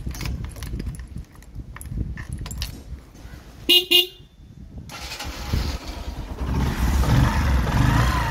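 Bajaj CT 110X motorcycle being tested on a freshly fitted battery. A few small switch and key clicks come first, then two short horn beeps about 4 s in. From about 5 s the electric starter turns the single-cylinder engine over, and it starts and runs, getting louder.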